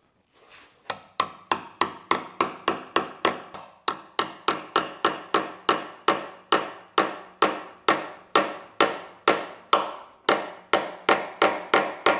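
Hammer tapping a chisel driven along the glue line of a wooden rocking horse to split off its top, which is held by only a few drops of glue: a steady run of sharp strikes, about three a second, each with a short ring, starting about a second in.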